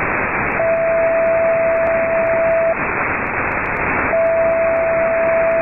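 Upper-sideband receiver on the 10-metre amateur band, hissing between transmissions. A steady whistle tone comes in twice, each time for about two seconds.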